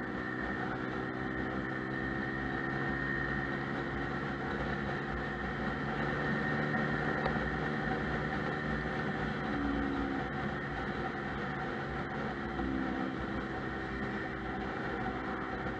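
Lexmoto Milano scooter engine running at a steady cruise under way, with wind and road noise on a handlebar-mounted camera. The engine pitch shifts slightly a couple of times.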